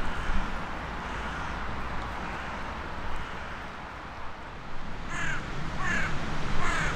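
Hooded crow cawing three times in quick succession, starting about five seconds in, over steady background noise.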